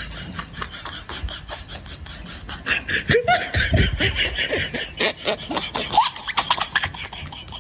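A person laughing in quick, repeated bursts, growing louder about three seconds in.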